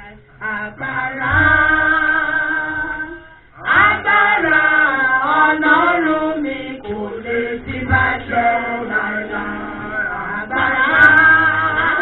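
Church worship singing: voices holding long, sliding notes of a praise song, with a short break about three seconds in.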